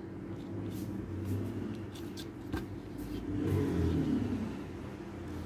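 Low engine hum that swells and fades about three to four seconds in, over a steady background hum, with a few faint ticks.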